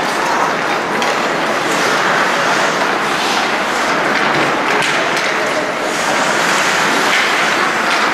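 Ice hockey game in play: a steady scraping hiss of skates on the ice with scattered clicks from sticks and puck.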